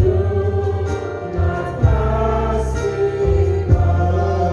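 A group of singers singing a gospel hymn, with a keyboard holding sustained chords and bass notes beneath them.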